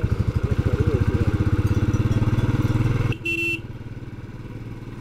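Motorcycle engine running under throttle with a fast, even pulsing beat. About three seconds in it drops off sharply to a quieter run as the throttle is closed, and a short beep sounds right after.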